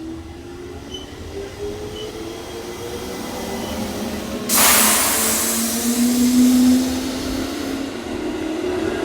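Electric commuter train at a station platform: a motor whine of several tones rising slowly in pitch, growing louder, with a sudden loud hiss that starts about four and a half seconds in and cuts off about three seconds later.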